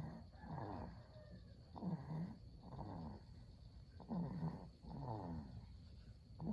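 A young child snoring in sleep: a rasping snore on each breath in and out, about one breath every two seconds.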